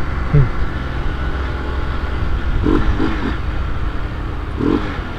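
Honda CG 125i Cargo's single-cylinder four-stroke engine running steadily on the move, with a throaty intake growl because its air-filter cover has been taken off.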